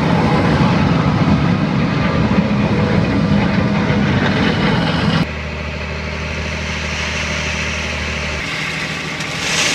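Heavy farm harvest machinery running loud and steady, with a deep engine hum. The sound changes abruptly about five seconds in to a steadier engine drone.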